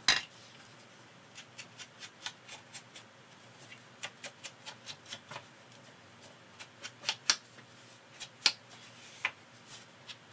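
Ink blending tool tapped and rubbed along the edges of cardstock, making a run of short, irregular taps and paper scuffs, with a sharper tap right at the start.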